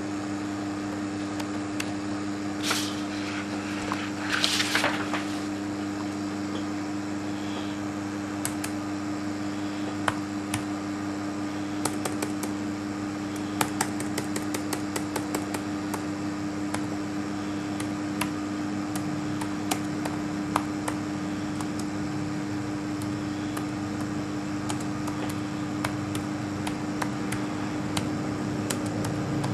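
Steady mechanical hum like a small fan. Two brief paper rustles in the first five seconds as the printed sheet is handled, then faint, irregular key clicks from a laptop keyboard being typed on.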